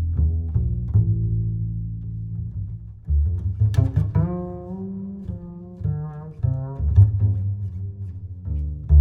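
Background music carried by deep plucked and bowed bass-string notes, with a few higher string notes in the middle.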